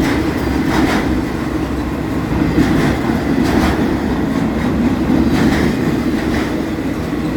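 Freight cars rolling past close by: a steady rumble of steel wheels on rail, with irregular clacks every second or two as the wheel sets cross rail joints.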